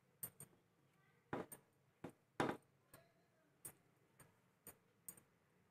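Faint, irregular clicks and light taps, about a dozen, with a slightly fuller tap about a second in and another near the middle.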